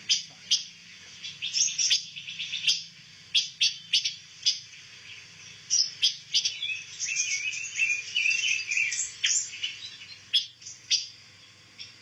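Caged pancawarna songbirds chirping and calling: quick high chirps and short warbled phrases, with sharp clicks scattered through.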